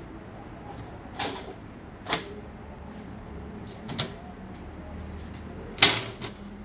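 Steel shelf panel knocking against the slotted-angle uprights of a steel storage rack as it is set onto the frame: about five separate sharp metal knocks, the loudest near the end, over a faint low hum.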